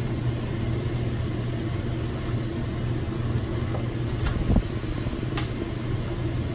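Steady low machine hum in a laundry room, with a few light clicks and a dull thump about four seconds in as a small cardboard detergent box is handled and opened.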